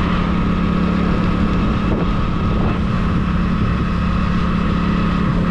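A vehicle's engine running steadily while travelling along the road, a constant low drone with road and wind rush.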